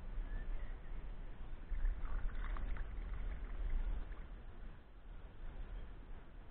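Wild brown trout splashing in shallow river water as it is released by hand, with a brief burst of splashing about two seconds in. A steady low rumble runs underneath.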